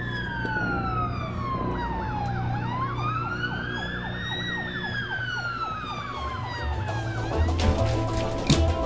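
Police car siren wailing, its pitch sliding slowly up and down about every five seconds, with a faster yelping warble, about four cycles a second, over it in the middle. Near the end a music beat with deep bass comes in.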